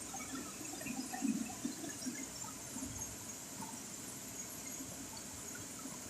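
Steady rush of a small waterfall pouring over rocks into a pool, with a brief louder moment about a second in.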